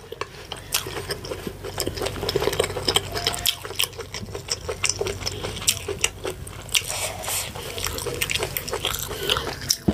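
Close-miked wet eating sounds: many quick mouth clicks and smacks as fufu with slimy ogbono and ewedu soup is chewed.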